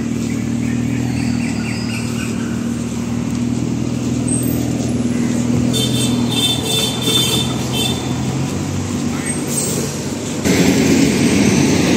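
Mercedes-AMG GLC 43's twin-turbo V6 running at low revs as the car creeps away, a steady low engine note heard from just behind the quad exhausts. The note shifts after about eight seconds, and near the end a louder rushing noise takes over.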